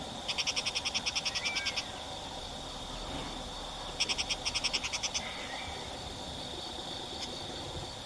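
A frog calling in two rapid trains of high, clicky pulses, about ten a second, each lasting one to one and a half seconds, over a steady high-pitched insect drone.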